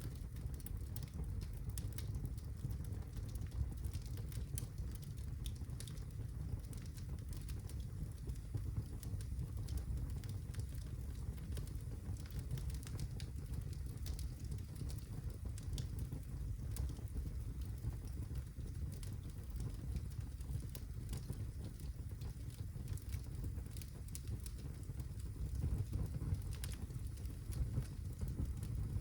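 Birch logs burning in a fireplace: a steady low rumble of flame with frequent small crackles and pops scattered throughout.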